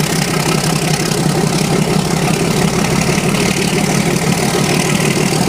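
KTMB YDM4 diesel-electric locomotive's engine running steadily under heavy load, pouring black exhaust, heard from alongside the moving locomotive with a steady rushing noise over the low engine sound.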